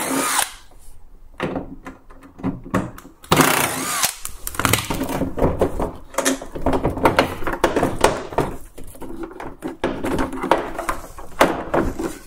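Cordless drill-driver run briefly on the dryer's door hinge screws at the start, then a string of clicks, knocks and rattles as the front door and its hinge are worked loose by hand.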